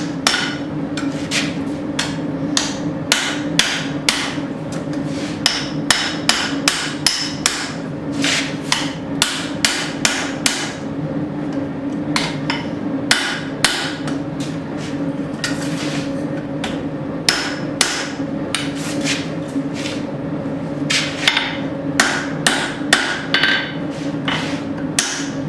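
Hand hammer striking hot steel on an anvil, a steady run of ringing blows about two a second with a few short pauses, closing up the wrapped eye of a tomahawk head. A steady hum runs underneath, from the gas forge.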